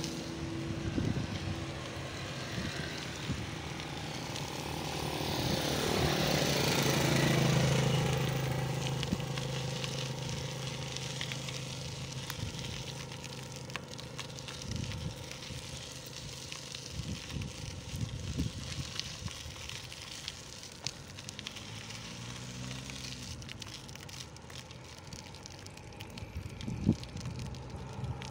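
Ride noise from a pedicab rolling along a concrete road: a steady hum with rattling and crackling. Another vehicle passes, loudest about seven seconds in, and there is a single sharp knock near the end.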